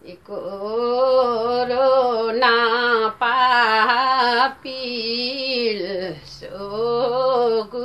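A woman singing a Limbu palam unaccompanied: long held notes with a wavering pitch, in phrases broken by short breaths about three, four and a half and six seconds in.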